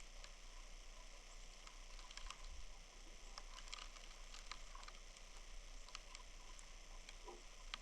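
Faint snowstorm ambience: a steady hiss with scattered light ticks and clicks.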